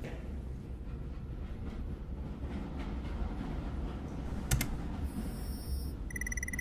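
Steady low rumble of a train cab in motion, with a few taps on console keys. About four and a half seconds in comes a sharp click, then a high electronic warble. Near the end a steady sci-fi electronic tone sets in as a holographic display switches on.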